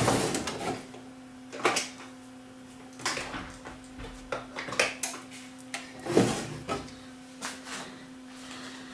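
Intermittent knocks, clicks and clatter of things being handled on a workbench, over a faint steady hum.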